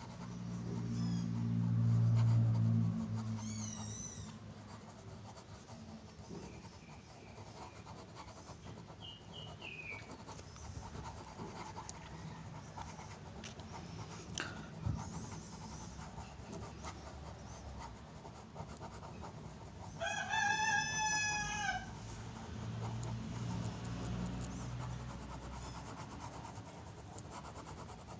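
A rooster crows once for about two seconds, a little past the middle, with faint bird chirps earlier. A low rumble swells near the start, the loudest moment, and returns more weakly later. Faint ballpoint pen scratching on paper runs underneath.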